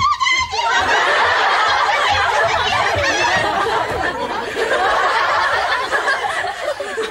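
Studio audience laughing: a dense crowd of laughter that swells up about a second in and carries on, easing slightly near the end. It opens with the end of a woman's high-pitched cry.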